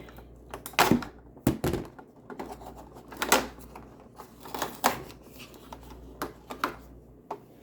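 Irregular sharp clicks and rustles of small cardboard and plastic packaging being handled and opened by hand: advent calendar compartments and miniature items.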